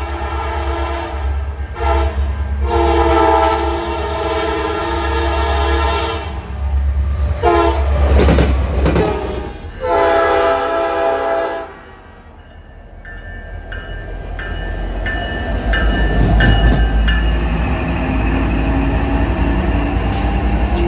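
CN diesel freight locomotive sounding its multi-note horn in a series of long and short blasts for the grade crossing, over a deep engine rumble. After the horn stops, the locomotive passes close, its engine and wheels on the rails growing louder.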